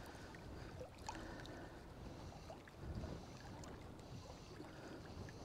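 Faint lapping of small ripples against a rocky loch shore, with a low wind rumble.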